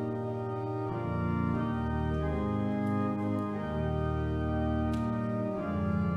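Church organ playing slow, held chords over deep bass notes, the harmony shifting every second or so.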